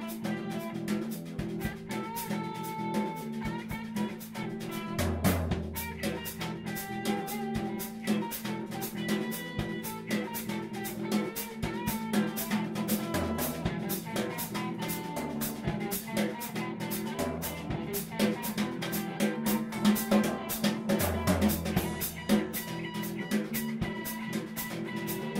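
Instrumental band music with a steady drum-kit beat, guitar and bass guitar.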